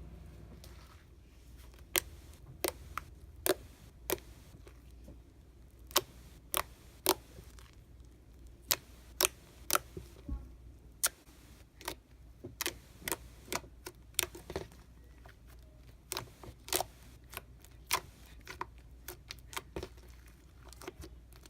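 Slime being worked by hand, giving off sharp clicking pops as air pockets burst, irregularly spaced, sometimes several a second.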